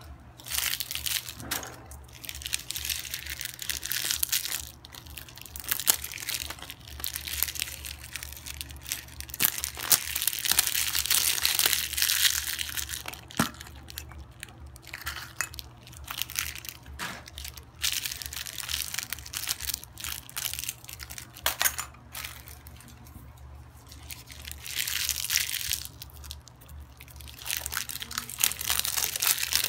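Cellophane candy packets crinkling and hollow plastic toy-egg capsules clicking as they are handled and pulled open. The crinkling comes in bursts of a few seconds, with sharp clicks between.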